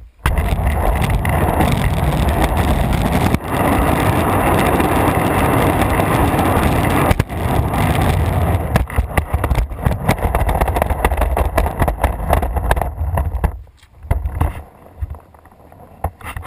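Skateboard wheels rolling fast over asphalt, heard from a camera mounted on the board, with heavy wind rumble on the microphone. Near the end the rolling dies away and it goes much quieter, with a few small knocks.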